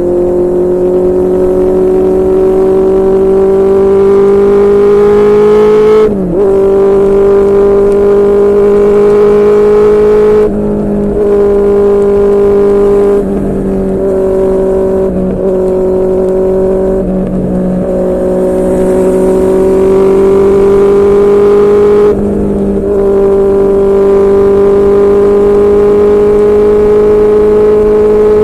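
QJMotor SRK600 inline-four with a Yoshimura R11 exhaust running at steady high revs under way, its note creeping slowly upward. The note dips briefly and recovers several times.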